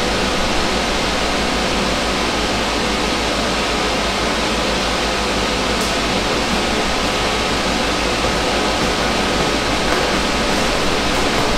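A car capsule's filtered inflation fan running, a steady, even hiss of moving air.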